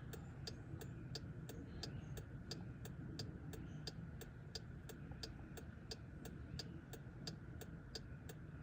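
2015 Jeep Grand Cherokee's hazard-light flasher ticking steadily, about three ticks a second, over a low steady hum.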